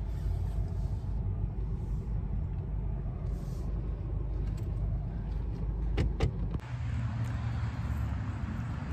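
Car engine running steadily with a low rumble. Two sharp clicks come about six seconds in, and the rumble changes pitch just after.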